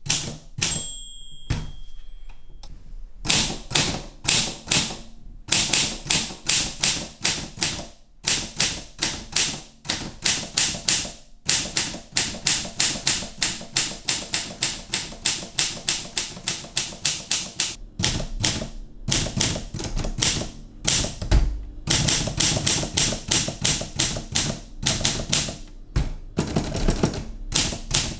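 Olympia SM3 manual typewriter being typed on: a fast, uneven run of sharp key and typebar clicks, several a second, with short pauses. A brief bell-like ring comes near the start, and a heavier thump comes about two-thirds of the way through.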